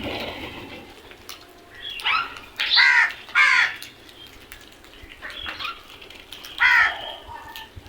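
Crows cawing: several harsh caws, the loudest a pair about three seconds in and another near the end, with fainter caws between. A brief rush of noise comes at the very start.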